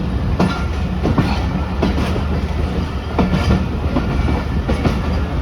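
Passenger train's wheels clattering over rail joints, heard from aboard the moving train: irregular sharp clicks over a steady low rumble.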